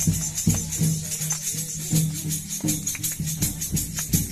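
Folk percussion accompanying a welcome song: a drum beats a steady rhythm of about three strokes a second over a constant jingling of metal percussion.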